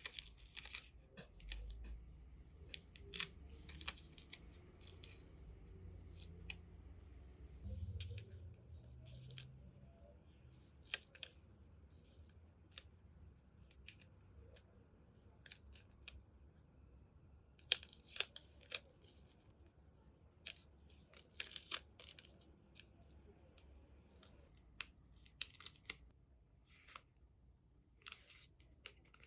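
Scissors cutting paper: many short, sharp snips in irregular runs, with some paper rustling.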